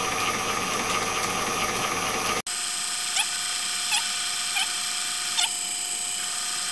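Drill press running, its 9/16-inch bit drilling a balancing hole into a lathe chuck; a steady machine whir. It changes abruptly about two and a half seconds in, after which a short chirp repeats roughly every three-quarters of a second.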